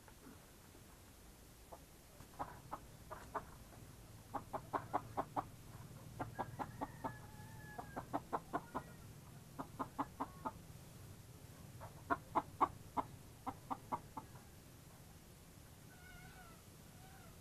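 Chickens clucking in quick runs of short notes, about four to seven clucks per run, repeated several times; near the end a drawn-out wavering call.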